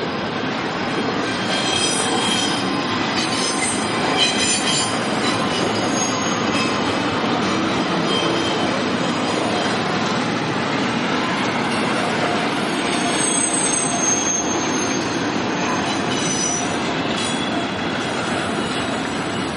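Double-stack intermodal freight train of loaded well cars rolling past: a steady rumble of steel wheels on rail, with high, thin wheel squeals coming and going, the strongest a few seconds in and again past the middle.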